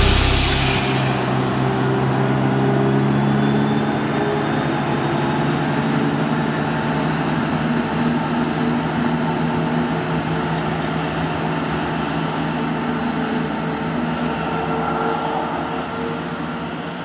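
Class 170 Turbostar diesel multiple unit pulling away from a station platform, its underfloor diesel engines running under power and fading gradually as it draws off. A faint high whine rises slowly in pitch over the first several seconds.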